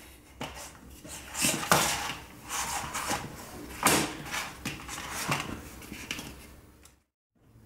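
Soft, irregular handling noises of rustles and light knocks as hands press a sheet of shortcrust pastry into a fluted metal tart tin on a paper-covered counter. The sound cuts out completely for a moment near the end.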